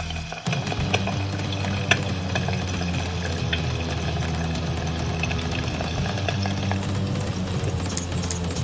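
Food sizzling as it fries in an aluminium skillet, with scattered clicks and scrapes of a utensil stirring it against the pan.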